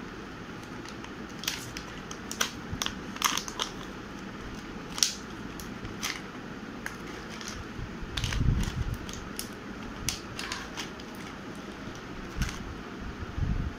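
Clear plastic packaging crinkling and crackling as it is handled and pulled open, in irregular sharp crackles, with a dull bump of handling noise about two-thirds of the way through.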